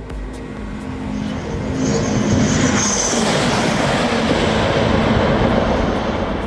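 SC Maglev L0 series train going by at high speed: a broad rushing noise that builds over about two seconds, stays loud, and fades near the end.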